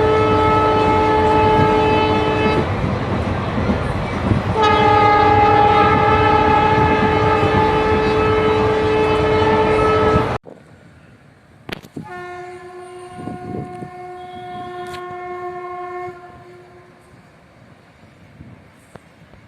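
Horn of twin WAG-5HA electric locomotives hauling a loaded freight train, over the noise of the passing train. It gives a loud blast of about three seconds, a two-second gap, then a long blast of about six seconds that cuts off suddenly. A fainter horn blast of about four seconds follows.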